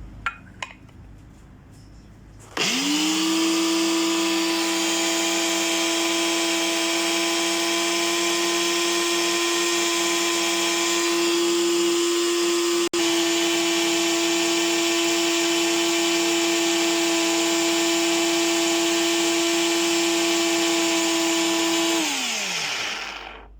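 Electric grinder motor spinning up a couple of seconds in and running steadily at high speed, grinding pieces of dried Indian costus root into powder. It breaks off for an instant about halfway, then winds down with a falling pitch near the end.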